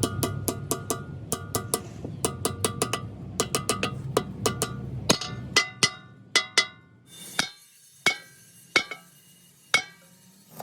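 Hammer blows on metal, ringing, struck in quick runs of four or five with short pauses. A low steady machine hum runs underneath until about halfway, after which the strikes come singly and further apart.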